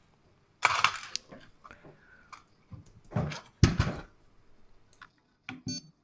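Hand-handling noise: rustling and brushing bumps close to the microphone in two main bursts, then a couple of short clicks near the end as a finger reaches the printer's control knob.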